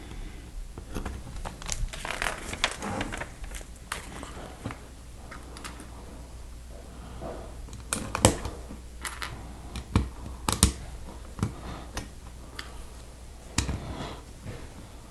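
Plastic LEGO pieces clicking and rattling as small 1x1 plates are handled and pressed onto a larger green plate, with a few sharper snaps of pieces seating about eight, ten, eleven and fourteen seconds in.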